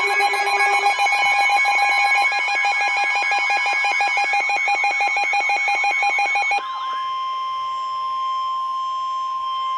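Emergency Alert System attention tones: a loud electronic alert made of several steady tones layered with a fast warbling pulse. About two-thirds of the way through it drops to a single steady tone near 1 kHz.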